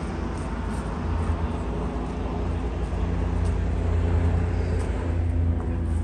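A large diesel engine running steadily with a deep, even drone, growing slightly louder toward the end.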